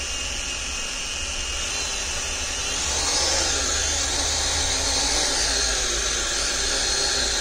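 Small electric motors and propellers of a toy racing quadcopter spinning with a steady whine while the drone is held down by hand. About three seconds in, the motors speed up: the whine rises in pitch and gets louder.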